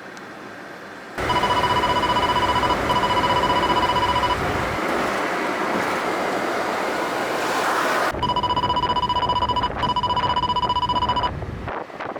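An electronic telephone-style ringing tone sounds twice as a double ring, each ring lasting about a second and a half, over a steady rushing noise.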